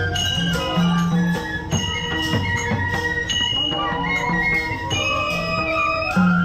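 Traditional Nepali street band playing: a group of bamboo flutes carries a melody together over a barrel-drum beat and other percussion.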